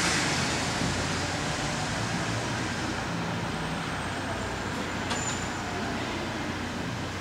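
Street traffic noise: a passing vehicle's steady hiss slowly fading away, with one faint click about five seconds in.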